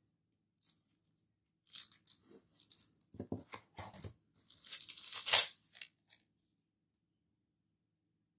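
Paper sticker sheets and plastic film rustling and crinkling as stickers are handled and peeled from their backing, in a run of short crackles that is loudest about five seconds in.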